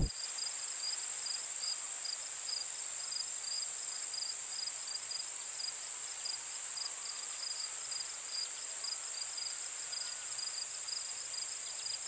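Singing insects: one steady, high, unbroken trill, with a second insect chirping in short pulses about twice a second just below it.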